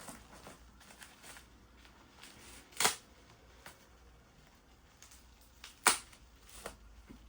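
Two sharp clicks about three seconds apart, with faint rustling of packaging being handled between them.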